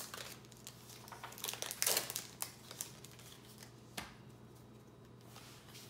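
Foil Yu-Gi-Oh! booster pack wrapper crinkling and rustling in the hands as cards are handled, in irregular bursts, with one sharp click about four seconds in.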